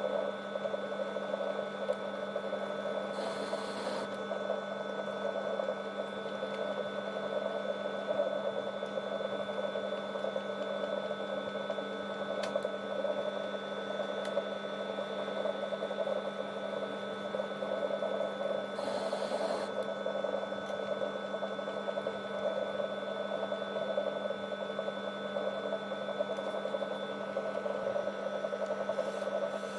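Metal lathe running steadily with a constant hum and whine. Two brief bursts of hiss come about three seconds in and again near nineteen seconds.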